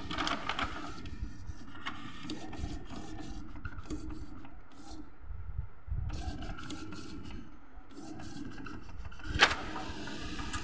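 Epson L380 inkjet printer running a nozzle check print after a head cleaning: the print mechanism runs steadily with many small clicks as the sheet feeds through. A sharp click about nine and a half seconds in comes as the sheet comes out.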